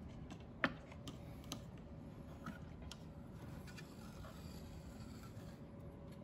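Stainless steel drip tray sliding out from under a wooden cutting board: a few light clicks and taps of metal against wood and stone, the sharpest a little over half a second in, over faint room hiss.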